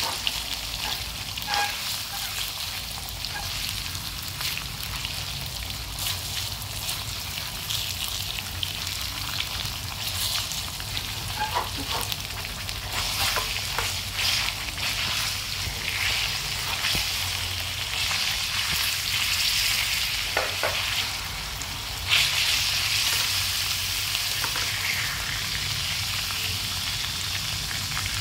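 Lemongrass-marinated pork cutlets sizzling as they shallow-fry in hot oil in a metal pan, with light clicks of wooden chopsticks turning them. The sizzle grows suddenly louder about three-quarters of the way through.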